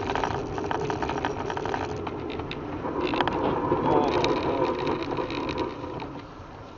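A car driving on a snowy road, heard from inside the cabin: steady road and engine noise with many short crackles through it, growing quieter over the last couple of seconds.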